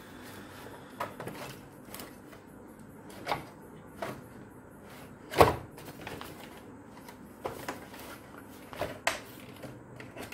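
Plastic housing of an old rechargeable fan being handled and pulled open by hand: a series of irregular clicks and knocks, the loudest about halfway through.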